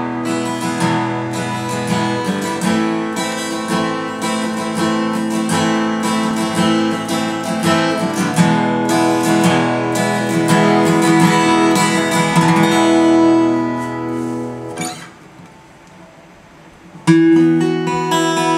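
Epiphone AJ-220S steel-string acoustic guitar being strummed in chords. Near fifteen seconds the strumming stops and the last chord dies away, and it starts again about two seconds later.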